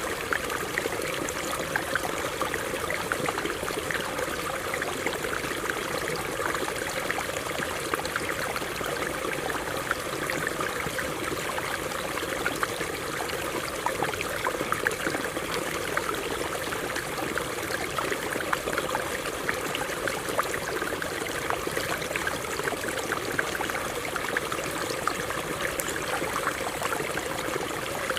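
Shallow stream running over rocks: a steady babble of water, full of many small splashes and drips.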